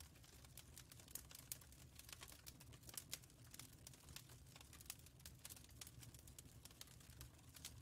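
Near silence: a faint low hum with scattered soft clicks and crackles.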